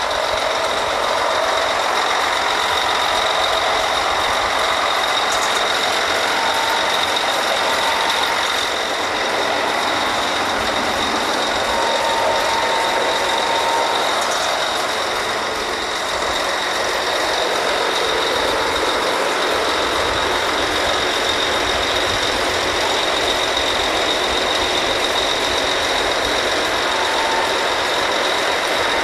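Drilling rig machinery running steadily: a loud, dense mechanical rush with a thin, steady high whine over it.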